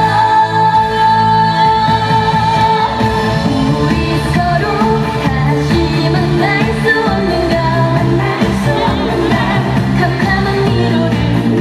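A woman singing a Korean trot song live over loud pop backing music, with a long held high note at the start before the melody moves on.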